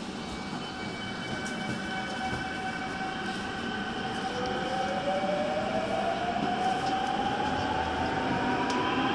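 Daejeon Metro Line 1 subway train pulling away from a station, heard from inside the car. The electric traction motors give a whine that starts climbing in pitch about four seconds in and keeps rising as the train speeds up. Under it, the running noise slowly grows louder.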